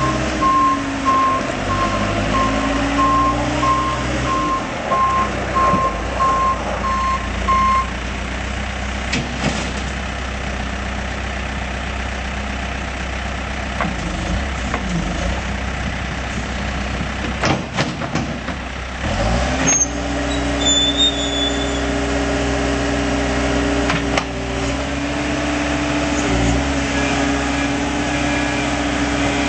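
Case 590SM loader backhoe's diesel engine running under load while its reverse alarm beeps steadily; the beeping stops about eight seconds in. Near the middle the engine speeds up and then holds at a higher, steady speed.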